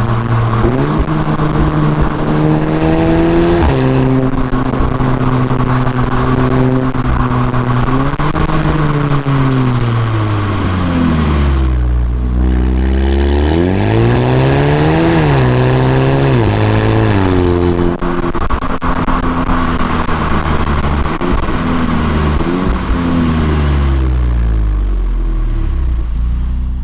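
Volkswagen Golf GTI TCR's turbocharged 2.0-litre four-cylinder engine and sport exhaust on a drive. The engine pitch climbs and drops repeatedly between steady stretches, falls low about twelve seconds in, then rises again.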